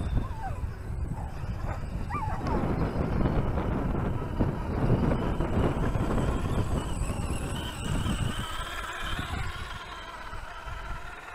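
Rumble and crunch of a scale RC crawler driving over loose stony ground, heard from a camera mounted low on it. There are short yelping calls at the start and about two seconds in, and a wavering whine from about seven seconds in. The rumble eases off near the end.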